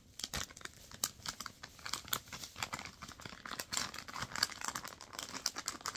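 Plastic bag of sour mango candies crinkling and rustling as fingers open it and dig inside, a steady run of small crackles.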